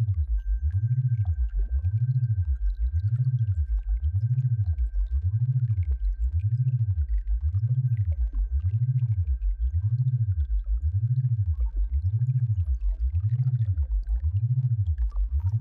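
Synthesized low tone for tinnitus sound therapy, gliding up and down in pitch about once a second in a steady, repeating wave, with a faint steady high tone above it.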